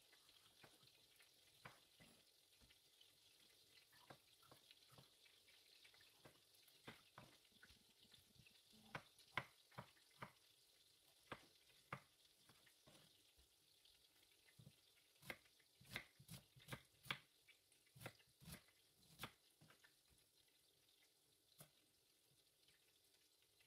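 Kitchen knife cutting tomatoes on a wooden cutting board: irregular sharp taps of the blade striking the board, coming in short quick runs.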